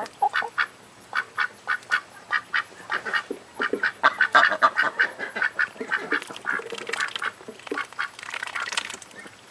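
Pet ducks quacking: a rapid, continuous series of short quacks from more than one bird, busiest about halfway through.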